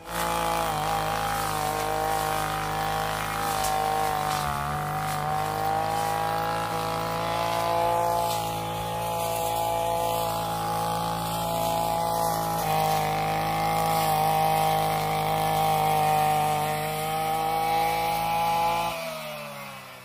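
Petrol brush cutter (grass trimmer) engine running at high revs while cutting grass, its note dipping slightly now and then. Near the end the throttle is let off and the engine note falls away.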